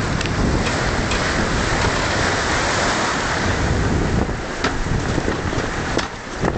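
Wind buffeting the microphone over the rush and spray of water along the hull of an IMX 40 sailing yacht moving fast, around 12 knots, with scattered sharp ticks; it eases briefly near the end.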